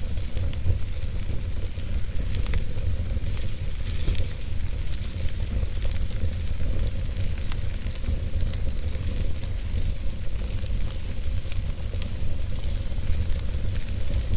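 Wood fire in a fireplace crackling steadily, with many small scattered pops over a constant low rumble.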